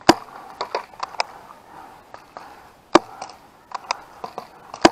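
Paintball markers firing and paintballs striking, about a dozen sharp pops in irregular clusters, the loudest just after the start, about three seconds in and near the end.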